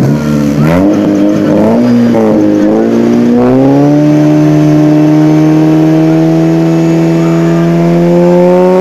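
Honda Civic sedan's four-cylinder engine revved in several quick blips, then held at high revs with its pitch slowly climbing.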